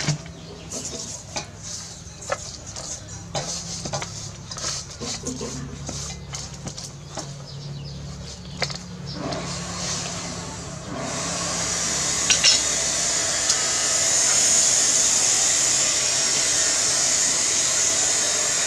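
Hands rubbing a raw fish in a stainless steel bowl, with small clicks and scrapes of fingers and fish against the metal. About halfway through, a steady, louder hiss comes in and continues over soft handling of rice noodles.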